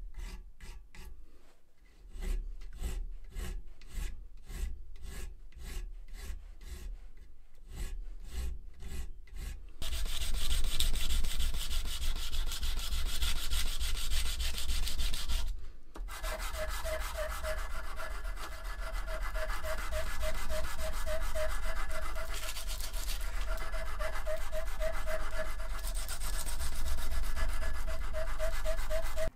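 Hand filing of a steel pricking iron held in a vice. First a narrow file scrapes between the teeth in a rapid run of short, even strokes. From about ten seconds a wider flat file rubs steadily along the iron's face, louder and continuous; in the latter part a pulsing ringing tone repeats through the scraping.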